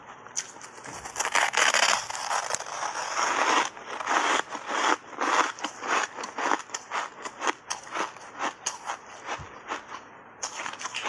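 Close-miked crunching of frozen block ice coated in matcha powder being bitten and chewed: a dense run of crunching early on, then many rapid separate crunches as the pieces are chewed down.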